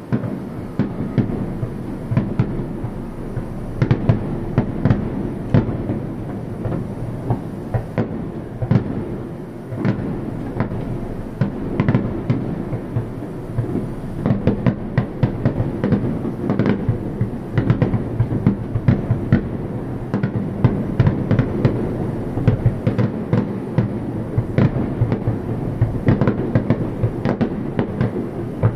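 Fireworks display: aerial shells bursting in quick succession, with many sharp bangs overlapping throughout.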